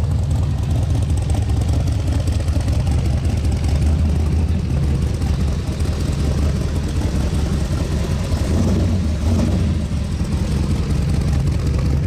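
Chevrolet Impala bubble-top's engine idling steadily with a low, even pitch.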